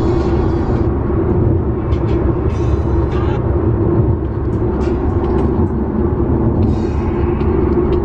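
Steady road and engine rumble inside a moving car's cabin, with three short rustling sounds.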